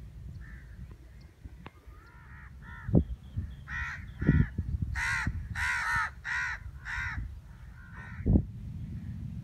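A bird calling repeatedly: a run of about a dozen short, harsh calls, loudest and densest in the middle, over a low rumble, with a few dull thumps.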